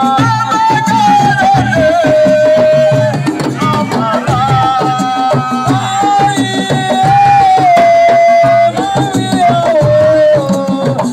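Assiko band music: hand drums play a dense, fast rhythm under a melody line of long held notes that slide from one pitch to the next.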